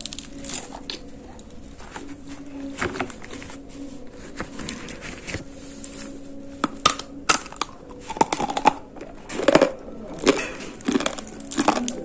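Chunks of dry gray edible clay being bitten and chewed close to the microphone: irregular sharp crunches and cracks that come thicker and louder in the second half.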